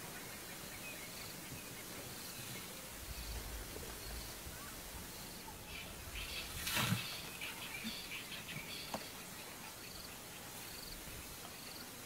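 Bush ambience: a steady hiss with a short high chirp repeating about once a second. Near the middle, a louder rustle and crackle of dry grass and leaves.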